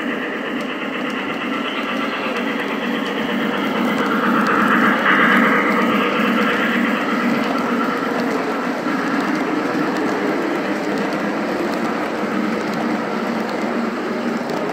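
O scale model passenger train of heavyweight cars rolling past on the track, a steady running rumble of wheels on rail that swells about five seconds in as the train passes closest.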